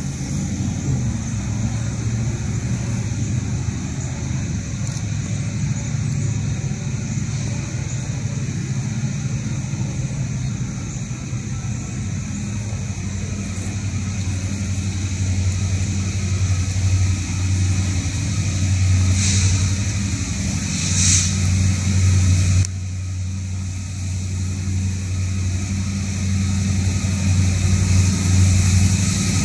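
Diesel-electric freight locomotives at the head of a slow auto rack train, approaching with a steady low engine drone that grows louder near the end.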